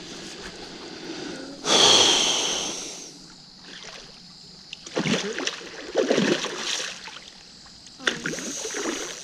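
A loud splash of water about two seconds in, fading over about a second, followed by voices calling out a few times.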